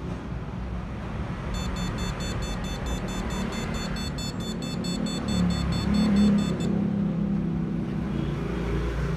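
Steady rumble of passing street traffic, growing louder about six seconds in. Over it runs a rapid string of short, high electronic beeps, about four a second, for about five seconds.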